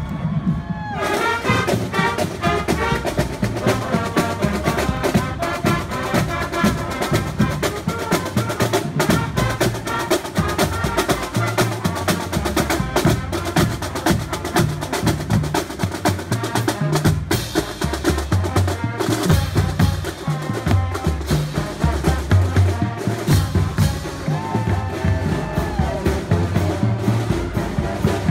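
High school marching band playing while it marches: a tune carried by the band over steady drumline drumming on snare and bass drums. The tune comes in about a second in.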